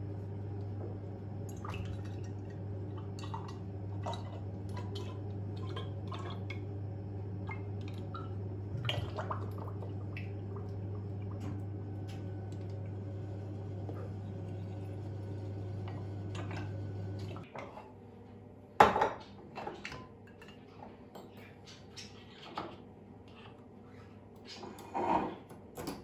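Cooking oil pouring from a large plastic jug through a funnel into a glass bottle: a steady low pouring sound that stops suddenly about 17 seconds in. After that come light glass clinks and knocks from handling the bottles and fitting a pour spout, the loudest about 19 and 25 seconds in.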